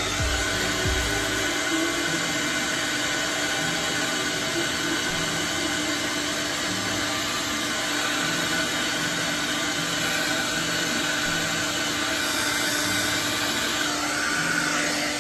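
Handheld hair dryer running steadily at one speed, blowing on a glued lace-wig hairline to dry the glue; it cuts off suddenly at the very end.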